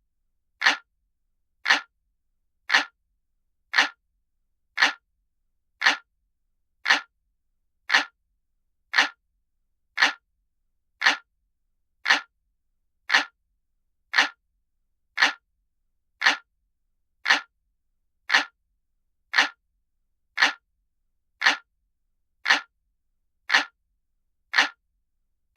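Looped analog-clock ticking sound, one short, sharp tick every second at a perfectly steady pace, marking the seconds of a countdown timer.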